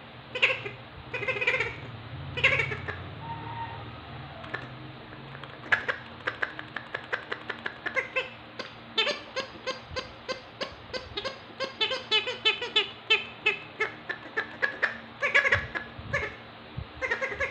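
Squeaky toy squeezed over and over: a few short bleat-like squeaks, then a fast, even run of them about three a second that stops shortly before the end.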